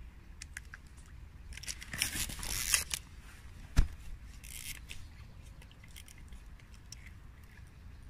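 Close handling noises: rustling and scraping about two seconds in, and again shortly after four seconds, with a single sharp knock near four seconds in that is the loudest sound, and scattered small clicks.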